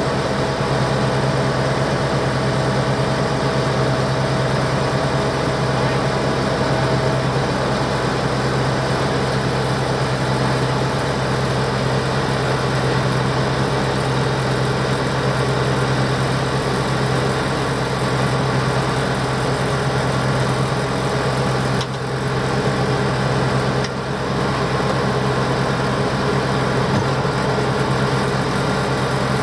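Tractor engine running steadily at low speed, a constant drone with two brief dips in level near the end.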